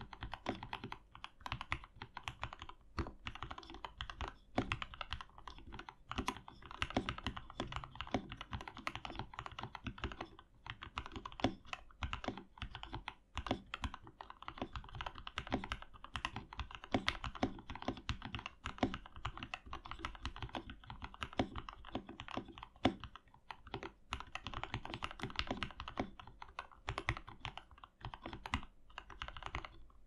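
Typing on a CM64 60% hot-swap mechanical keyboard fitted with Gateron Yellow linear switches and PBT cherry-profile keycaps: a fast, uneven stream of key clacks with a couple of brief pauses.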